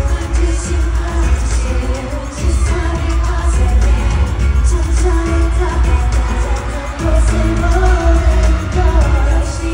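A K-pop boy group singing live at a concert over a loud pop backing track with a heavy bass beat.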